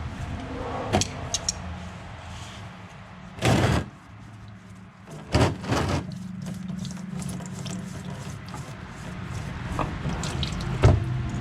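Hydraulic oil filter being unscrewed and handled, with a few short splashing, spattering bursts of hydraulic oil and small knocks and clicks; only a little oil comes out.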